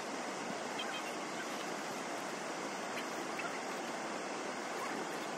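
Steady, even rushing ambience, like water running or wind moving through the valley, with a few faint high chirps about a second in and around three seconds in.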